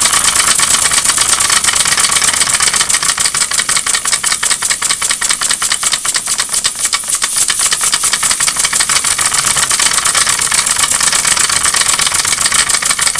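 Small homemade oscillating-cylinder model steam engine running steadily: a fast, even train of hissing exhaust puffs with a light mechanical clatter.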